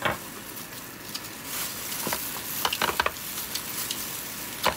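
Crackling rustle of disposable plastic gloves handling grilled oysters in their shells, with a few sharp clicks and smacks, a cluster of them about three seconds in.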